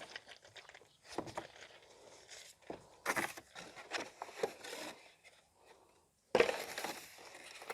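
Cardboard box and packaging being handled and rummaged through: irregular scrapes and rustles, with a sudden louder scrape about six and a half seconds in.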